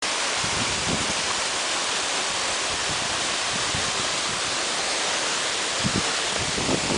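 Waterfall rushing with a steady, even roar of falling water, with a few brief low bumps near the end.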